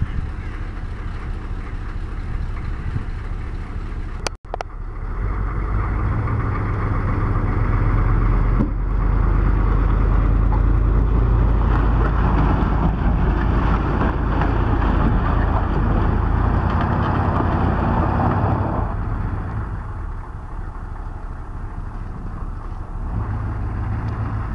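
Chevrolet pickup truck's V8 engine pulling a towed car, with road noise. There is a brief break about four seconds in, then the engine grows louder for several seconds and holds under load before easing off.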